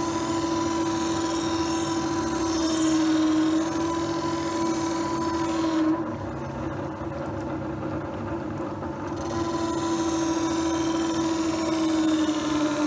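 Dick SM-111 electric knife sharpening machine running with a steady motor hum while a knife blade is pressed against its grinding wheel with a hissing scrape. The scraping stops for a few seconds midway, then resumes. The hum sags slightly in pitch while the blade bears on the wheel.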